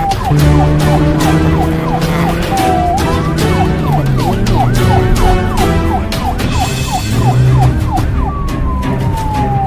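Emergency-vehicle siren sound effect in a fast yelp, about three to four rising-and-falling sweeps a second, with a long falling tone near the end. It plays over background music with a steady beat.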